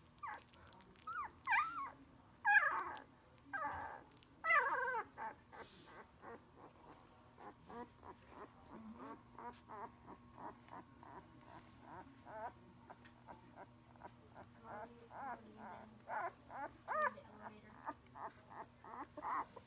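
One-week-old Labrador retriever puppies whimpering and squealing. A few louder, wavering squeals come in the first five seconds, then a long run of short, quick squeaks, two or three a second.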